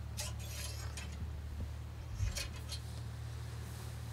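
Light metallic clinks and rattles of a muzzleloader rifle being reloaded after a shot, in two short clusters near the start and a little past halfway, over a steady low hum.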